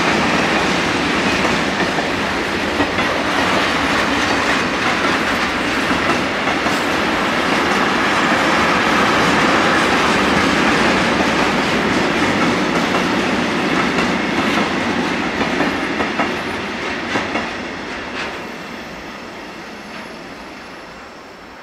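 Freight train of tank wagons rolling past: a steady rumble of wheels on rail with clacking over the rail joints. It fades away over the last few seconds as the end of the train goes by.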